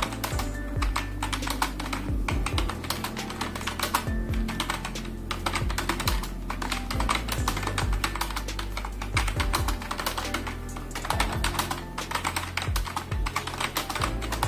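Fast touch-typing on a computer keyboard, a continuous irregular stream of key clicks several a second, at a pace of about 43 words per minute, over background music.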